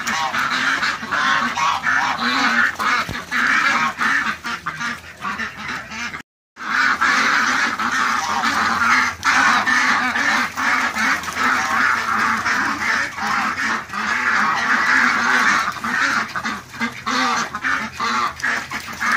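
A flock of domestic ducks quacking continuously in a dense overlapping chorus as a herding dog pushes them around. The sound drops out completely for a moment a little over six seconds in, then resumes.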